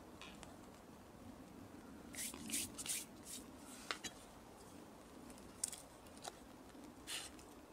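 Handling of a knife and a leather tool roll: a few short rustling scrapes, several sharp little clicks, and another brief scrape near the end as the knife is drawn out of the roll. Faint.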